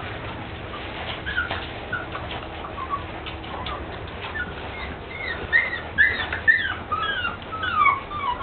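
Young golden retriever puppies whimpering in short high squeaks and whines, coming thicker and louder in the second half.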